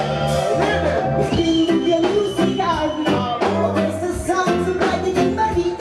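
Live reggae band playing, with a heavy bass line, drums and electric guitar, and a voice singing over it.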